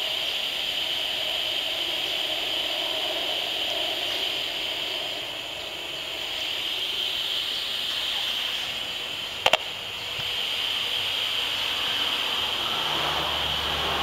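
Steady static hiss with a constant high tone from the HF 35C RF analyser's audio output, which turns the radio-frequency signals it picks up from the smart meter into sound. A single sharp click about nine and a half seconds in.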